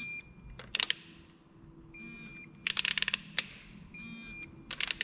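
Electronic torque wrench tightening camshaft bearing-cap nuts: short runs of ratchet clicks, and a half-second electronic beep three times as the set torque is reached.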